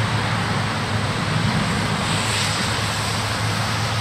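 Tow truck engine running steadily as the truck drives through deep floodwater, a low drone over an even hiss.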